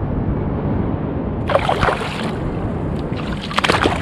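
Water sloshing and splashing against a kayak's hull, in two bursts about a second and a half in and again near the end, over a steady low rumble of wind on the microphone.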